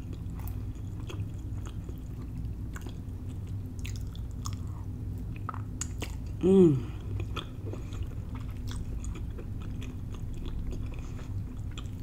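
Close-up chewing and mouth sounds of someone eating soft cooked green beans from a fork, with many small wet clicks. There is one short hum of the voice about six and a half seconds in, over a faint steady low hum in the room.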